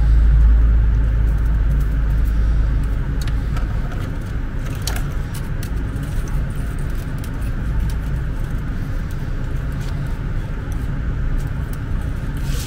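Steady low rumble of background noise, with scattered small clicks and rustles from fingers handling the thin wires and tiny LEDs of a string of LED fairy lights.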